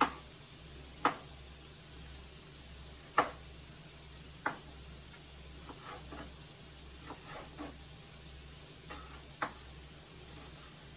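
Scattered sharp clicks and knocks of kitchen utensils, about five clear ones with a few fainter ticks between, over a steady low hum.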